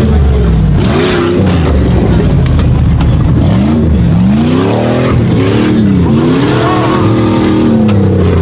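Jeep Grand Cherokee tough-truck engine revving up and falling off again and again as it is driven hard around a dirt track, holding high revs for a couple of seconds near the end. The uploader judges the engine worn out, with heavy blow-by, and a little down on power.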